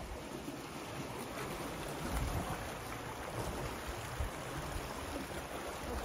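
A small creek running steadily, a continuous rushing of water, with low rumbles of wind on the microphone.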